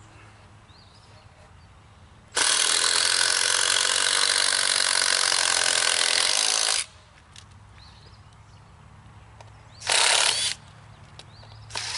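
Handheld power drill driving a long construction screw through a wooden fence post into the horizontal brace post: one steady run of about four seconds starting about two seconds in, then a short burst near ten seconds and another just before the end.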